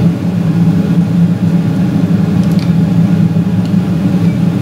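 Steady low hum of a running kitchen appliance, with a couple of faint light clicks a little past halfway.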